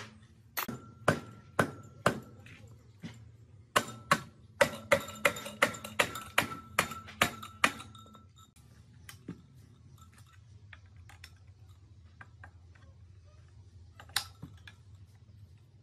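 Hammer blows on a steel punch set against a motorcycle engine crankcase, each with a short metallic ring. Four blows come first, then after a pause a quicker run of about a dozen, then light handling of the engine and a single knock near the end.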